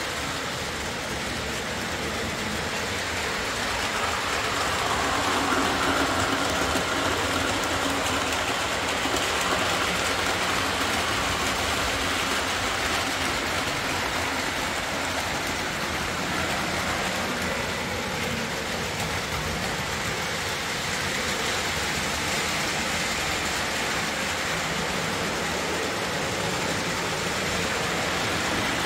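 Lionel O-27 Alco diesel model train running on three-rail track: a steady whir of the motor and rumble of the wheels, growing louder about five seconds in as the train comes nearer, then settling.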